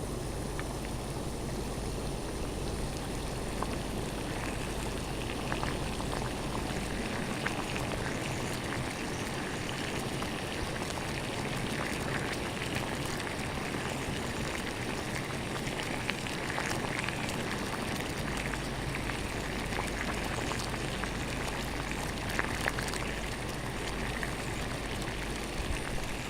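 Water boiling: steady bubbling with many small pops.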